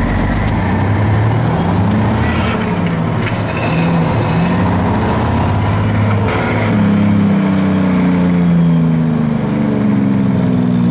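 A 6-71 Detroit Diesel two-stroke inline-six in a 1968 GMC truck, running loud under load as the truck is driven. Its pitch climbs and drops several times as engine speed changes.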